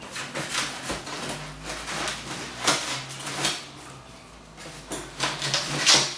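Cardboard box being pulled open by hand: a run of short scraping and rustling sounds from the flaps, loudest near the end.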